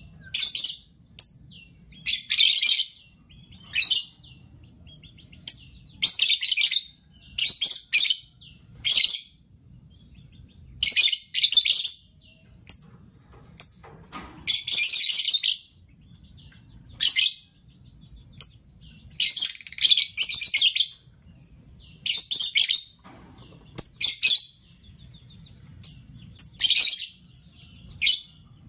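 Caged lovebirds chattering: irregular bursts of high, scratchy chirps, each under a second to about a second long, with short gaps between.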